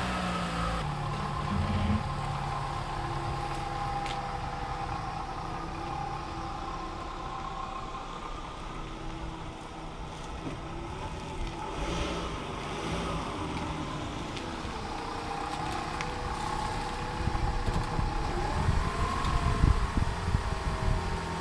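Toyota Camry engine running at low speed after being started, the car being moved slowly, with some low rumbling near the end.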